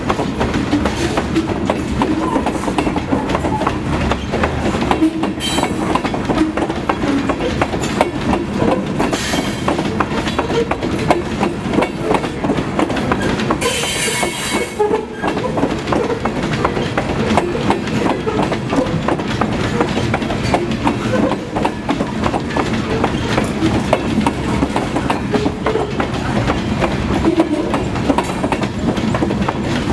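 Loaded CSX covered grain hopper cars rolling past on jointed track: a steady rumble with continual clickety-clack of wheels over rail joints. A brief high-pitched noise cuts in about halfway through.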